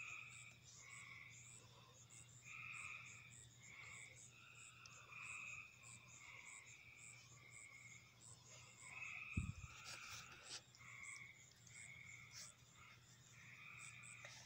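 Faint night chorus of frogs and insects: short rasping calls repeating irregularly over a steady high ticking about twice a second. One dull thump about nine seconds in.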